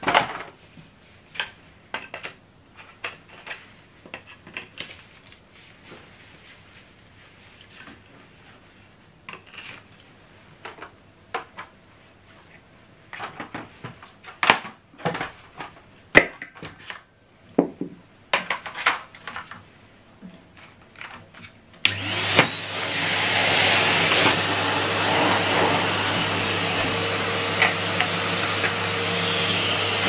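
Clicks and knocks of a metal extension wand and plastic floor tool being fitted and handled; about two-thirds of the way through, a Hetty HET 160 bagged cylinder vacuum cleaner switches on and runs steadily with a thin high whine over its motor hum.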